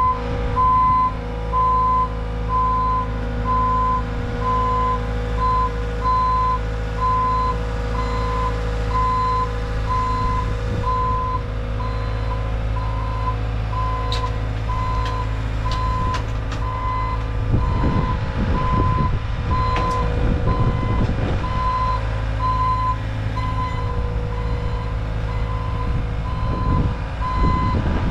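Bobcat T66 compact track loader's backup alarm beeping in a steady, evenly spaced rhythm over its diesel engine running as it handles the sign.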